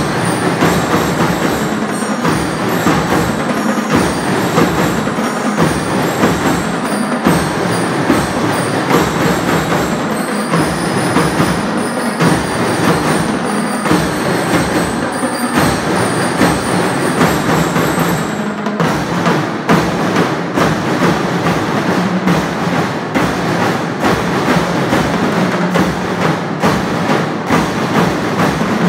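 School marching band playing, snare and bass drums keeping a steady marching beat with high ringing notes over them. The high notes drop out about two-thirds of the way through, leaving mostly drums.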